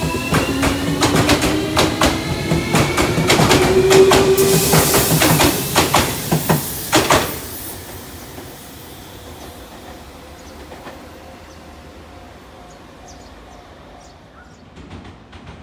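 JR Kyushu Series 305 electric train accelerating away, its Toshiba IGBT VVVF inverter and permanent-magnet synchronous motors giving a whine that rises steadily in pitch, over quick clicks of wheels crossing rail joints. The sound drops off sharply after about seven seconds and fades as the train recedes.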